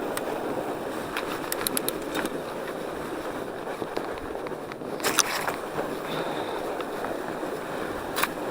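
Norco Bigfoot 1S fat bike rolling on a packed snow trail: a steady rolling noise from the wide tyres, with scattered sharp clicks and knocks from the bike, the loudest about five seconds in.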